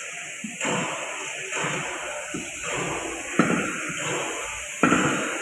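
Car-workshop clatter: irregular knocks and scraping of tools and parts being handled at a car on a service lift, with two sharper knocks in the second half.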